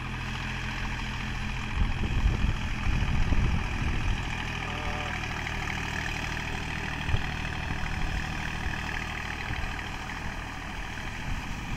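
Deutz-Fahr Agrolux 50 hp tractor's diesel engine running steadily under load as it drives a Shaktiman rotavator, puddling a flooded paddy field. Bursts of louder low rumbling come through about two to four seconds in.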